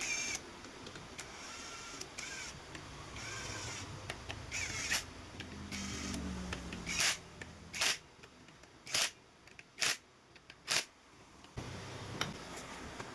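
Hand work on a motorcycle engine being rebuilt: metal parts and tools scrape and squeak, then five short, sharp clicks come about a second apart.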